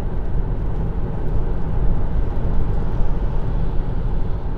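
Steady road noise of a Kia e-Soul electric crossover cruising at speed: tyre and wind noise with no engine sound, even throughout.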